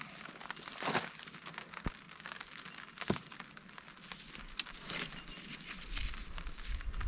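Rustling and crinkling of a tarp shelter being handled and adjusted, with scattered sharp clicks and knocks. A low rumble builds near the end.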